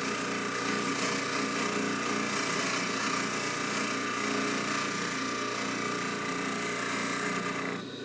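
Jewelry buffing machine running steadily while a hollow chain is held against the spinning buffing wheel, with a hum and a rubbing noise; it stops suddenly near the end.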